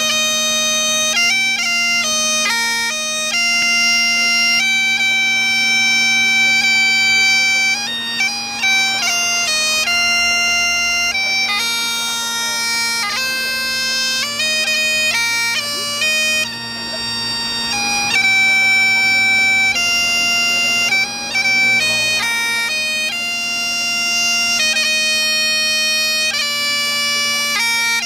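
Great Highland bagpipe playing: the chanter carries a melody of held notes broken by quick grace-note flicks, over the unbroken steady drone.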